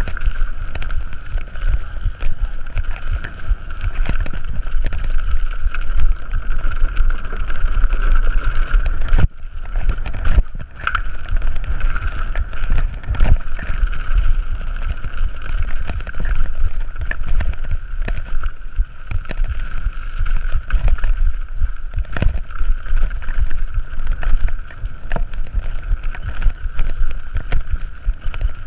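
Mountain bike descending a dirt trail: wind buffeting the camera's microphone with a heavy rumble and constant knocks and clatters as the tyres and suspension run over roots and rocks, a steady higher hum underneath, and a brief dropout about nine seconds in.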